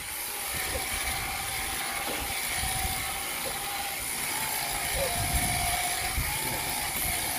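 Sheep-shearing machine handpiece, driven by a flexible shaft, running steadily as its cutter works through a sheep's fleece: a constant mechanical hum with a steady high tone.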